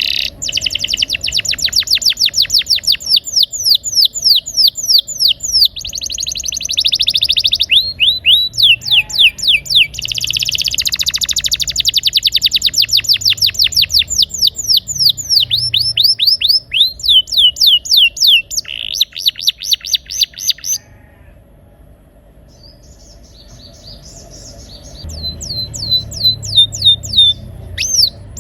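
Domestic canary singing long rolling trills, runs of fast repeated high notes that sweep downward, changing from one trill to the next. It goes quiet for about four seconds near the end, then starts a few more trills.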